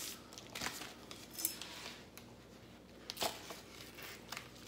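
Scattered light clicks and short rustles of paper and plastic packaging being handled while graded comic books are unpacked.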